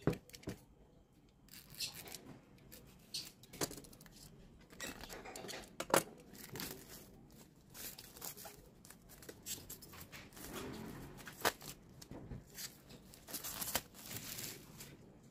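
Clear plastic shrink-wrap being slit with a box cutter and torn and peeled off a book. It crinkles in several bursts, with scattered sharp clicks and snaps.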